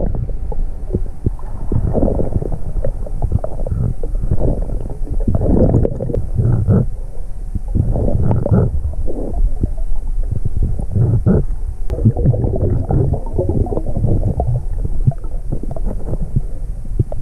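Muffled underwater rumbling and gurgling of churning water, with irregular surges as a hand fans sand on the seabed, recorded by a camera under water.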